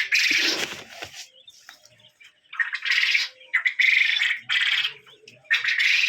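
Caged laying quail calling in a series of harsh, rasping bursts, each about half a second to a second long, with short pauses between them.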